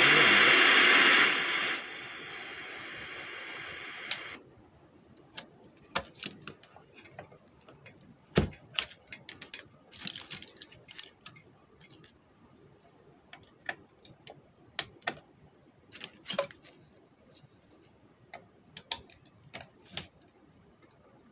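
A loud static hiss that drops to a softer hiss about two seconds in and cuts off about four seconds in, followed by scattered clicks and light knocks of hands turning a car stereo's metal casing over and of tools on a workbench.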